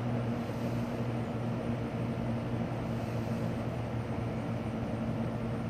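Circa 1975–76 Lakewood P237 electric fan running on medium speed: a steady low motor hum with the rush of air from the blade. Its McMillan motor is dry and in need of oil.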